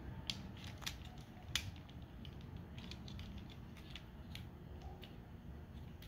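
Plastic parts of a transformable toy figure being handled as a small winch piece is pressed into a port: scattered light clicks and rubbing, the sharpest click about a second and a half in.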